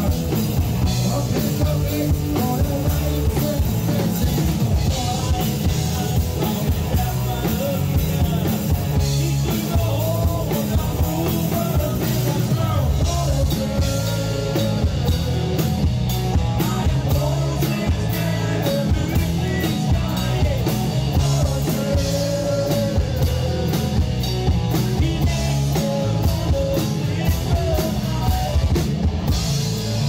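Rock music with a drum kit playing throughout, with regular cymbal strokes from about halfway in.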